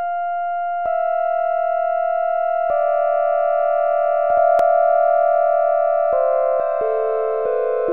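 Slow synthesizer music of held, pure tones. New notes enter every second or two and stack into a sustained chord, with lower notes coming in near the end.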